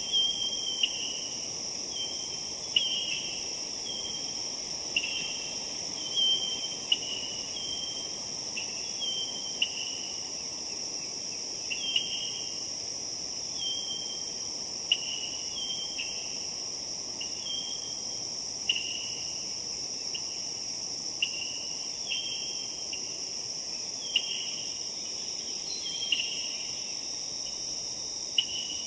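Forest ambience: a steady high insect drone with a short falling chirp repeated about once a second.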